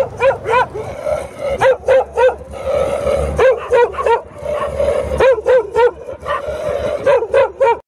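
A pack of dogs barking, short sharp barks coming in quick runs of two to four all the way through, sometimes overlapping.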